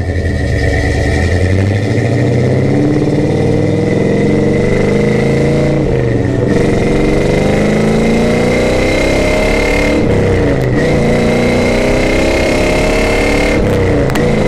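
1964 Pontiac GTO's V8 accelerating hard from a standstill, heard from inside the cabin. The revs climb, break briefly about six seconds in and dip again about ten seconds in as the gears change, then hold steady at cruising speed.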